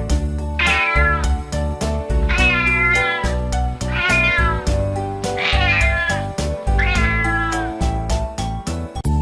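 Five cat meows, each bending up then falling in pitch, about one every second and a half, over upbeat children's music with a steady beat.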